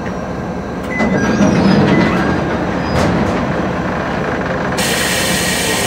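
KiHa 350 diesel railcar standing at a station platform, its diesel engine running with a steady low hum. A few metallic clanks come about a second in and again about three seconds in, and a steady hiss of air starts abruptly near the end.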